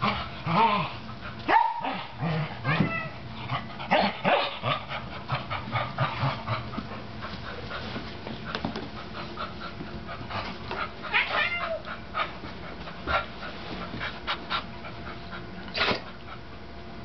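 Dogs yipping and barking in short bursts while playing rough with a cat. The bursts are busiest in the first few seconds, then become scattered, with one more sharp one near the end.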